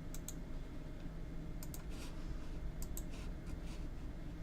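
Sharp clicks from working a computer, coming in three quick pairs spaced a second or so apart, over a low steady room hum.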